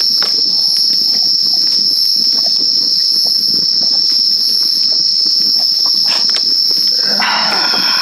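Dense chorus of crickets: a loud, steady, high-pitched trill. Faint crackles from the campfire sit underneath it, and a short vocal sound comes near the end.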